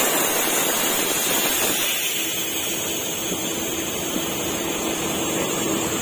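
Large intercity coach bus running close by: a steady rushing engine and air-conditioning noise with a faint steady hum.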